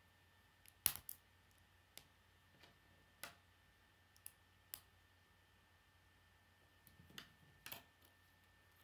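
Plastic K'nex rods and connectors clicking as they are handled and snapped together: a scattering of sharp clicks, the loudest about a second in.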